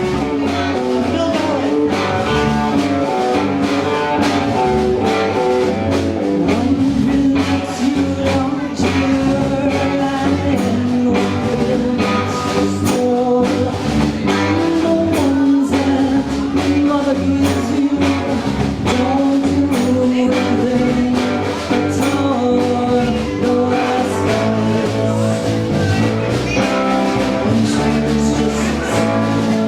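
A band playing a song in a blues-rock vein, with guitar, drums keeping a steady beat, and a singing voice.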